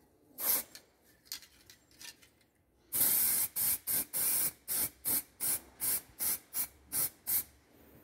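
Aerosol spray-paint can spraying a steel support base in short bursts: one brief spray about half a second in, then from about three seconds a longer spray followed by a quick run of about a dozen short puffs, roughly three a second, that stops a little before the end.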